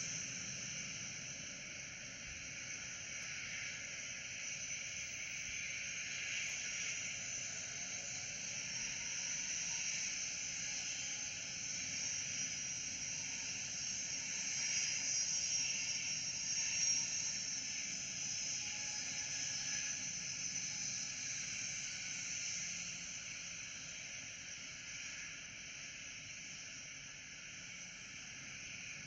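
Distant jet aircraft noise heard as a steady hiss that swells through the middle and eases off toward the end.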